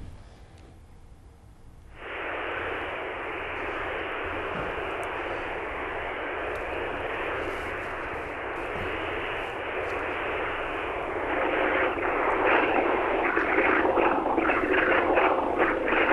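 Steady rushing noise over a telephone link from a ship at sea, cut to the narrow phone band. It starts abruptly about two seconds in and turns louder and choppy from about eleven seconds: a poor, breaking-up connection.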